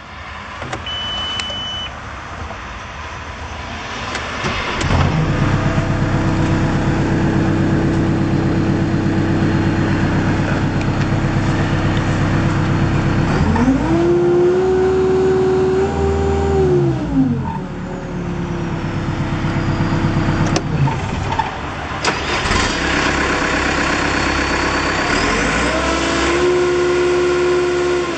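2013 Volvo MCT125C tracked skid steer's diesel engine starting about five seconds in and then idling steadily. It is revved up and let back down twice, once in the middle and again near the end.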